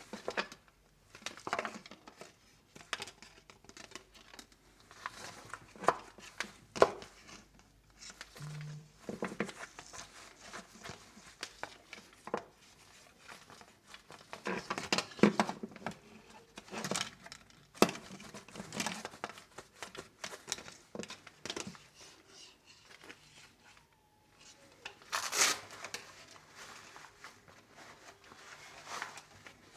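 Motorcycle gloves and their packaging being handled: irregular rustling and crinkling with sharp clicks and a few short tearing sounds.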